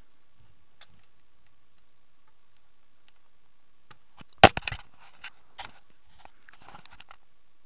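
Screwdriver prying at small clipped-in parts of a toy drone: quiet at first, then a sharp plastic snap about four and a half seconds in, followed by a few lighter clicks and rattles.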